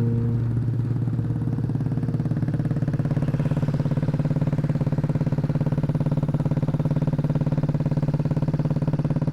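Motorcycle engine running steadily with an even, rapid pulse, its pitch and level holding constant.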